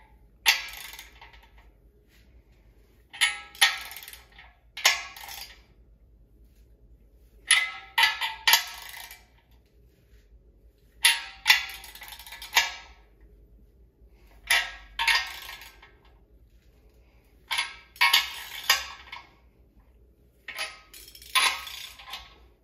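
Wrench work on engine bearing cap bolts as they are untorqued: sharp metallic cracks and clinks in groups of one to three, every few seconds, each ringing briefly.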